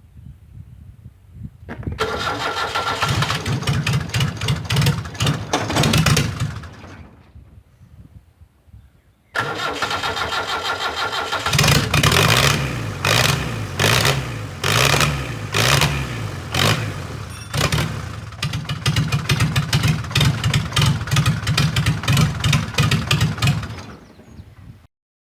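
Land Rover Series 3 engine being started after a full service: it cranks and fires, runs with a rapid beat for a few seconds and dies away, then starts again about nine seconds in and runs with its speed rising and falling before cutting off near the end.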